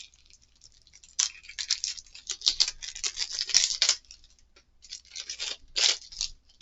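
Irregular rustling and scraping as board game components are handled, in two spells with a short pause around the middle.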